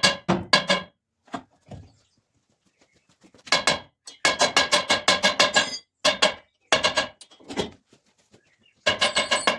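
Rapid hammer blows on steel, ringing metallically, about six to eight strikes a second, in several bursts with short pauses between.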